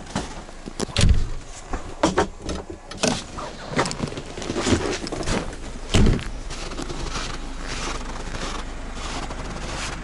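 Irregular knocks, clunks and scrapes at the door and body of a Burlak all-terrain vehicle, over the low, steady running of an engine; the knocks stop after about six seconds and the engine hum carries on alone.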